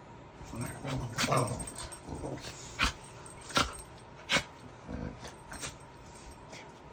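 Puppies playing and wrestling, with low play-growls and three short, sharp sounds about a second apart near the middle.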